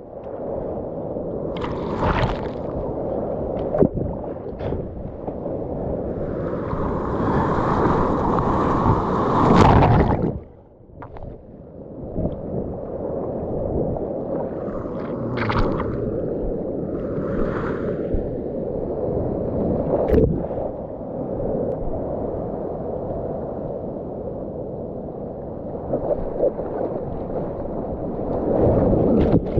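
Ocean whitewater and paddling splashes right at a mouth-held action camera: a steady rushing wash broken by splashes, with a sharp drop-off that lasts about a second, about ten seconds in.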